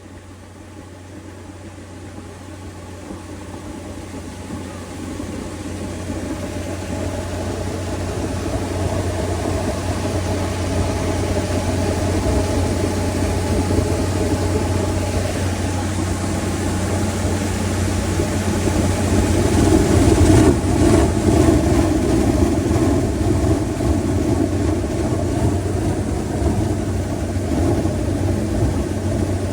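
Diesel-driven air compressor of a borewell drilling rig running, a steady low engine drone with a rushing noise over it. It grows steadily louder through the first half and is loudest about twenty seconds in.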